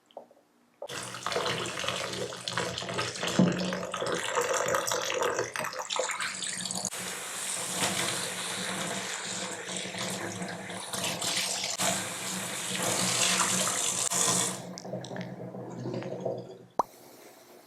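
Water running from a tap into a sink: a steady gush that starts abruptly about a second in and stops near the end.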